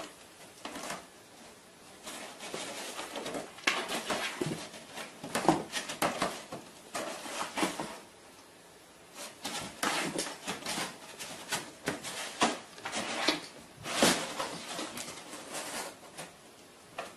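Cardboard box with cardboard dividers scraping and rustling in irregular bursts as a cat pushes its head and paws into the compartments and climbs into the box.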